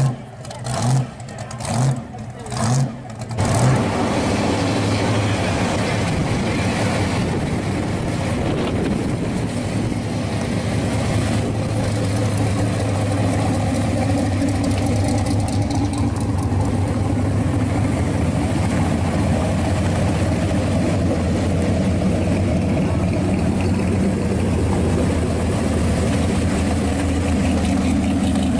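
Engines of classic muscle cars driving slowly past. The engine rises and falls about once a second for the first few seconds, like short throttle blips, then settles into a steady low rumble.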